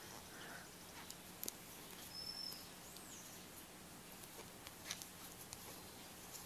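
Faint handling sounds of a crochet hook and fuzzy textured yarn, a few light clicks over a low steady hum. Two brief high chirps come a little after two seconds in and about three seconds in.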